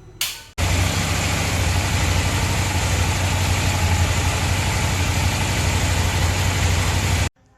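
KTM 790 Adventure's parallel-twin engine running steadily at idle, with an even pulse. It starts suddenly after a short burst and cuts off abruptly near the end.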